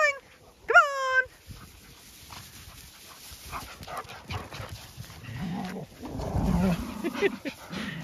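Dogs playing: two short rising yelps right at the start, then low growls as they wrestle in the grass in the last few seconds.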